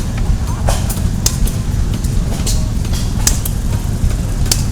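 Blacksmith's hammer striking metal on the anvil: sharp, irregular blows roughly once a second, over a steady low rumble.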